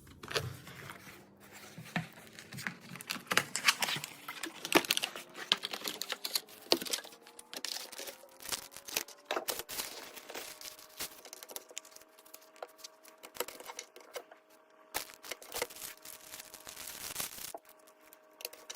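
Crinkling, rustling handling noise with many scattered clicks, heaviest in two stretches. A faint tone rises slowly in pitch through the first half and then holds steady.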